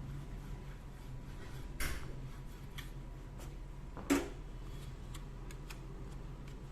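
Small hard objects being handled on a workbench: two sharp knocks and a scatter of light clicks over a steady low hum.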